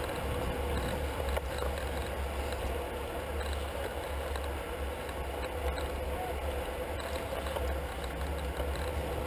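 Steady wind rumble on a bike-mounted camera's microphone while riding at race speed in a tight bunch of road bikes, with tyre and road noise underneath.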